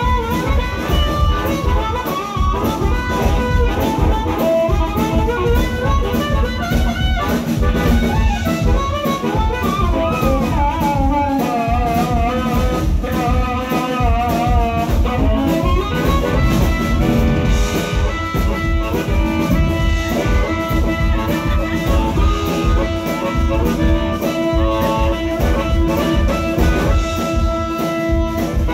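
Live band playing an instrumental: an amplified harmonica carries the lead over a drum kit keeping a steady beat, with electric guitar and lap steel guitar.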